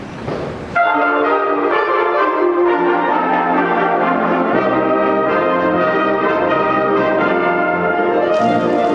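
Wind band playing with brass to the fore, sustained chords and moving notes. It cuts in abruptly less than a second in, after a brief hiss of ambient noise.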